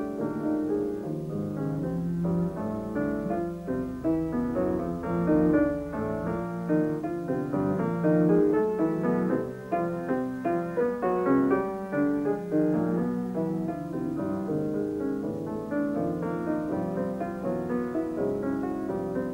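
Piano music: a busy, unbroken stream of notes in the middle and low register, with a dull top.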